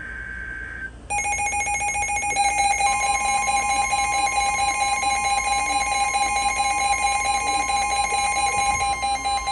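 NOAA Weather Radio emergency alert: the tail of a SAME data burst, a short digital warble, ends about a second in. A loud buzzy alarm tone then starts, and about two seconds later the steady 1050 Hz Warning Alarm Tone joins it. This signals a warning, here a flash flood warning, about to be read.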